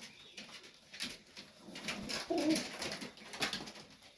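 Domestic pigeons cooing in a loft, one low coo standing out a little past the middle, over scattered light clicks and rustling.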